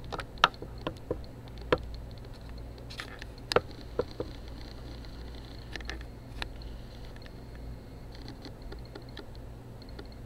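Handling noise from a handheld camera being moved in toward a computer screen: a dozen or so irregular light clicks and taps, mostly in the first six or seven seconds, over a steady low hum.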